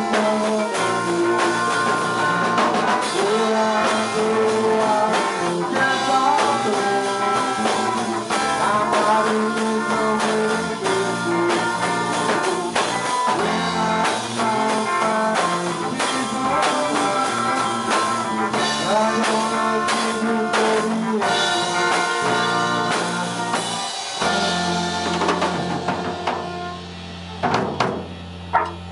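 A rock band playing live: electric guitar, bass guitar and drum kit. Near the end the playing thins out and gets quieter.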